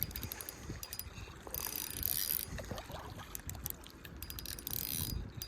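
Spinning reel being cranked, its gears clicking and ratcheting with a scratchy hiss, brighter about two seconds in and again near the end.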